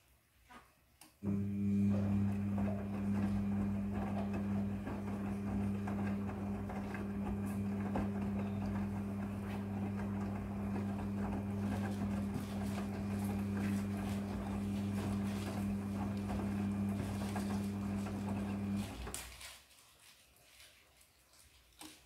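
Midea front-loading washing machine's drum motor starting about a second in and turning the drum in its wash rotation: a steady motor hum with the clothes tumbling inside. It winds down and stops near the end.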